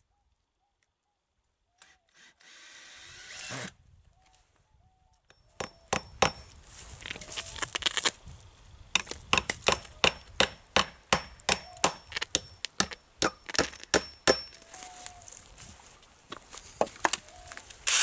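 Hammer driving nails into a spruce stump to fasten sticks to a carved nest box: a long run of sharp, ringing strikes, about two a second, starting about five seconds in. A short rising whir comes before the hammering, about two seconds in.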